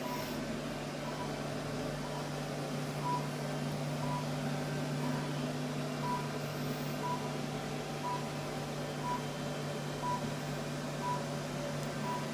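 High-power laser therapy unit beeping once a second with a short high tone, the signal that the laser is emitting. A steady low hum runs underneath.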